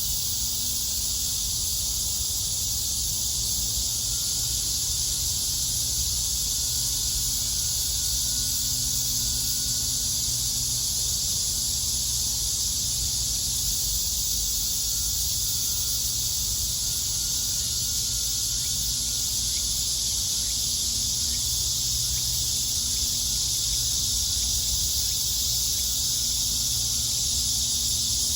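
A chorus of cicadas giving a steady, unbroken high-pitched buzzing drone, over a low steady rumble.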